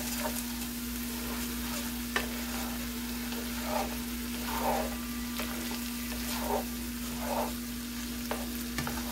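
Rice pilaf sizzling and simmering in a pan while it is stirred with a plastic slotted spoon, with a few scraping strokes of the spoon across the pan in the second half and a sharp click about two seconds in. A steady low hum runs underneath.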